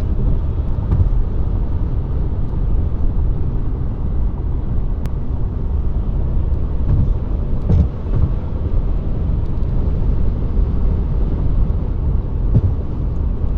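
Steady low rumble of a 2014 Chevrolet Cruze Diesel's 2.0-litre turbodiesel four-cylinder and road noise, heard from inside the cabin.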